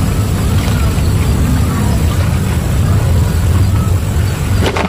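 Wind buffeting the microphone: a steady, loud low rumble, with a single sharp click just before the end.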